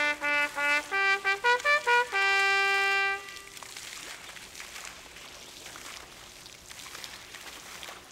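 Solo trumpet playing a run of quick short notes, ending about three seconds in on one long held note.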